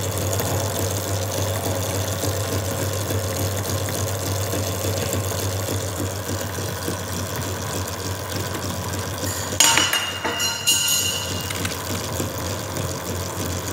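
A machine running steadily with a constant low hum under an even noise. About ten seconds in, a few sharp metallic clinks with a brief ringing, as steel switch plates are handled on the sandpaper-covered board.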